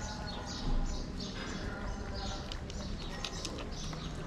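Kittens eating and drinking: rhythmic crunching of dry cat food and the soft lapping of a kitten at a tub of water, with scattered small clicks over a low steady background rumble. There is a louder bump just under a second in.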